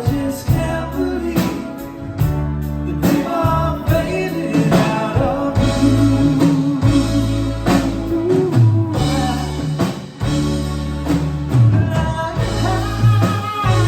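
Live rock band music with a lead vocal singing over a strong bass line and steady drum hits.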